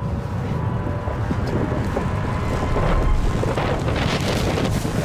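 The powder blast of an avalanche hitting base camp: a loud, steady rushing roar of wind buffeting the microphone.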